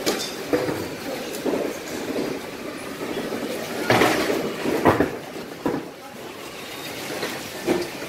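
Busy market ambience: a steady background din with faint voices and several sharp clatters and knocks, the loudest about four to five seconds in.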